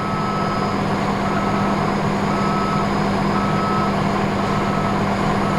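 Vehicle backup alarm beeping steadily, about one half-second beep per second, over a steady low engine hum from an idling truck.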